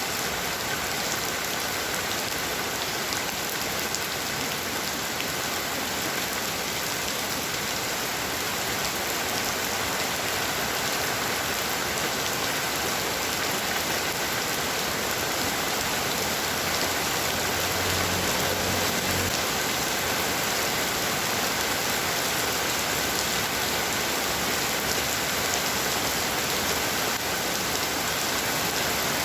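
Heavy rain falling steadily in a dense, even downpour.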